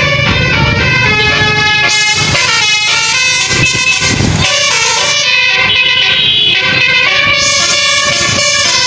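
Basuri telolet horn on a tour bus playing a melody: a continuous run of horn notes stepping from pitch to pitch.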